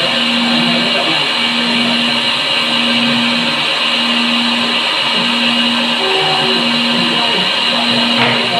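CNC machine running with a steady, loud mechanical whine and hiss, under a low hum that pulses on and off about once a second.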